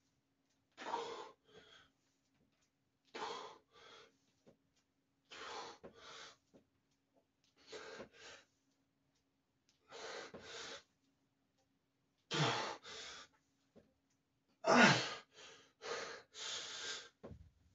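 A man breathing hard through a set of barbell back squats: a sharp breath out and in with each rep, about every two to two and a half seconds. The breaths grow louder and more strained near the end of the set.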